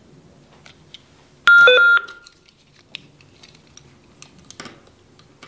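Hytera HP795EX two-way radio playing its power-on tone through its front speaker as it boots: a short chime of a few quick beeps lasting about half a second, about one and a half seconds in. Faint scattered clicks follow.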